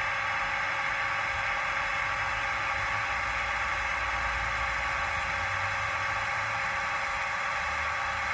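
Small electric motor of a Roco EDK 750 digital model crane, whirring steadily as the crane slews its boom round.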